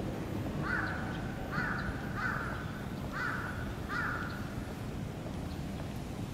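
A crow cawing five times in quick succession, over a steady low background rumble.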